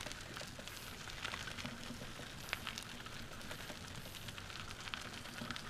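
Trike tyres rolling along a dirt-and-gravel trail: a steady hiss with many small, irregular clicks and pops from grit under the wheels.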